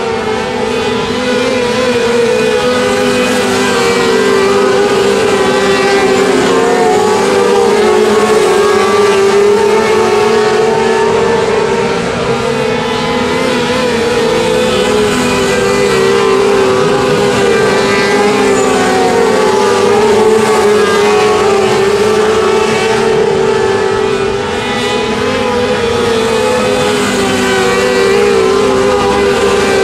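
Several winged sprint car engines running steadily at moderate revs, their pitch wavering a little, without full-throttle acceleration.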